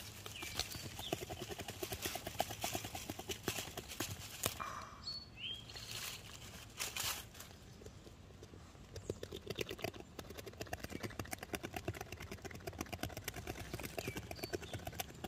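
Beaver gnawing a twig held in its front paws: a rapid, steady run of small crunching bites, with a pause of a second or two about halfway through.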